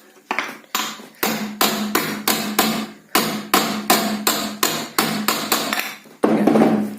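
Repeated hammer taps driving a 6202 ball bearing into its seat in a ceiling fan's body, about two to three sharp, ringing strikes a second, with a louder, longer-ringing blow near the end. The taps are light to moderate, as the bearing is eased in evenly.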